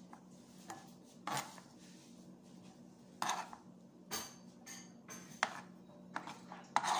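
A metal spoon scraping and knocking against a cutting board as it mixes diced tomato and onion, in about eight short separate strokes.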